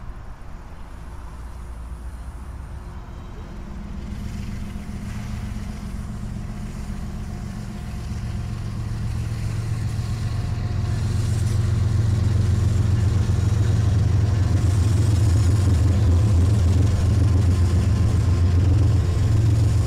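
Diesel locomotive approaching, its low engine rumble growing steadily louder for about twelve seconds, then running loud and steady until it cuts off suddenly.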